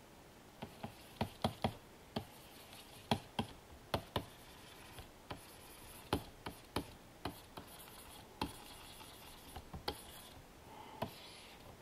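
Pen nib tapping and stroking on the glass of a Wacom Cintiq 27 QHD Touch pen display while painting in colour: a string of light, irregular clicks, about two a second.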